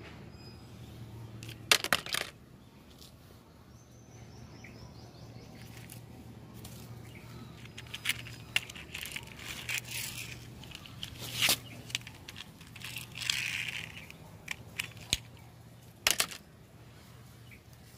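Dry palm husk and bark debris crackling and rustling as a hand rummages through it, with scattered sharp clicks and knocks from small plastic toys being handled, over a steady low hum.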